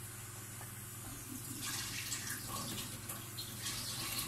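Tap water running into a sink as pickled limes are rinsed, starting softly about one and a half seconds in, over a low steady hum.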